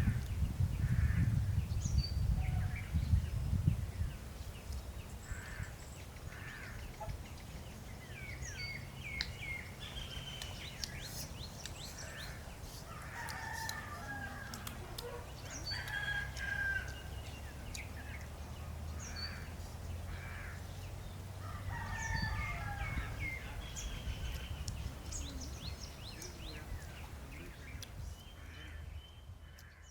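Birds calling, with many short chirps and sweeping calls scattered throughout, over a steady low rumble that is louder for the first few seconds.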